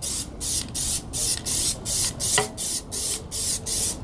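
Aerosol can of Plasti Dip rubber coating spraying in short, rapid hisses, about three or four a second, as the first coat is laid onto a wheel.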